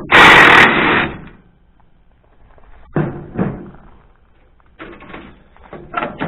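A loud clatter lasting about a second, then a few shorter knocks and rattles: metal parts being handled at the front of a tractor.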